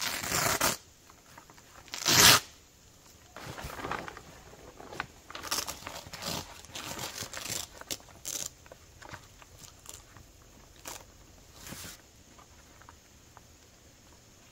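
Heavy canvas of a wall tent roof, strewn with dry leaves, rustling and scraping under a man's body as he climbs and crawls onto it. Two loud bursts at the start and about two seconds in, then shorter, quieter rustles until about twelve seconds in.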